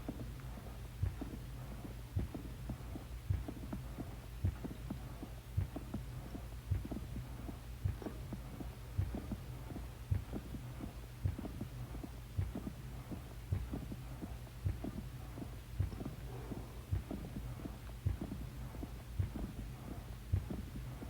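A steady low hum with a soft throb repeating about once a second.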